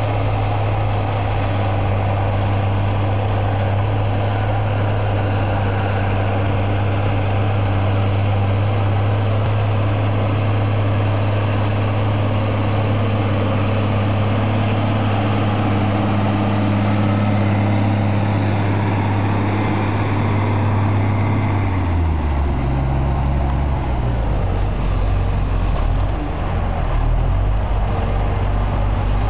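Case IH Quadtrac tractor's heavy diesel engine running steadily under load while pulling a large reversible plough through the soil. The engine note drops lower and changes about three-quarters of the way through as the tractor draws close.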